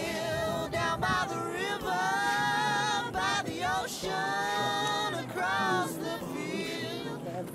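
Singing, with long held notes that slide up and down between pitches.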